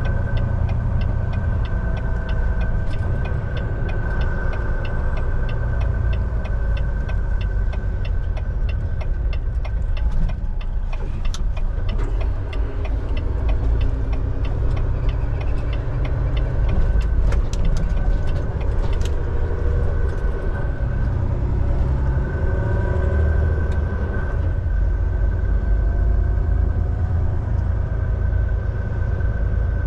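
Semi-truck running down the highway: steady low engine and road rumble with a constant whine over it, and a spell of fast light ticking in the first third.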